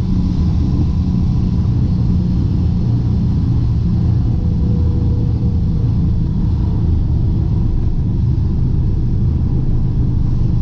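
Piper Seneca V's twin turbocharged Continental six-cylinder engines running steadily, heard from inside the cockpit as a deep, even drone.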